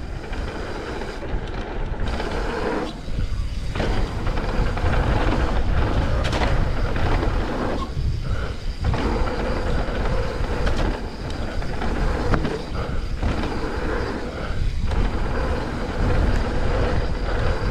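Mountain bike descending a wet dirt trail: wind rushing over the camera and tyres rolling on the ground, with brief knocks and rattles over bumps. The noise eases for a moment a few times.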